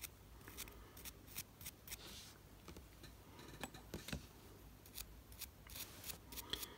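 Faint, irregular small clicks and scratches of a hand tool scrubbing corroded metal pusher contacts on a watch's plastic frame.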